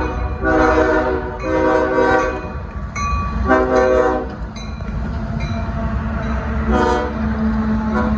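Freight locomotive air horn played in a series of blasts: three longer ones in the first half and short toots near the end, over the steady low rumble of the train running by.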